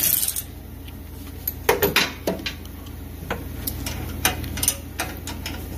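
Half-inch wrench and ratchet working bolts on a steel mower bracket: scattered sharp metal clicks and clinks, some in quick clusters, as the bolts are tightened by hand.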